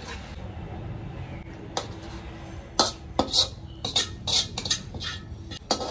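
Metal spatula scraping and knocking against a metal wok as stir-fried food is dished out onto a glass plate. Quiet for the first couple of seconds, then a run of short scrapes and clinks that grows busier toward the end.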